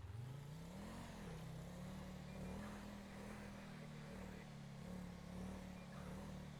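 Vehicle engine revving briefly about a second in, then settling to a steady idle.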